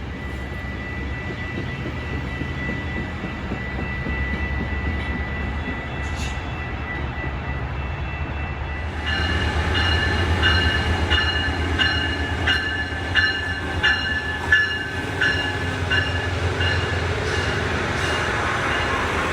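A train passing. A steady low rumble builds; then, about halfway through, the cars roll by, their wheels clicking over rail joints about twice a second under a high metallic squeal.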